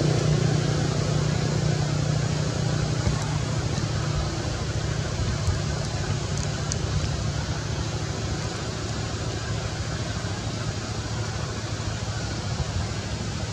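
Steady outdoor background noise: a low rumble under an even hiss, easing slightly over time, with a couple of faint ticks.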